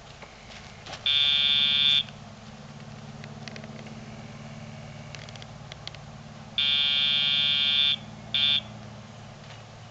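Electronic buzzer of a Dogtra e-collar's sound box, buzzing twice for about a second each and then once briefly. The longer buzz marks the pager being used.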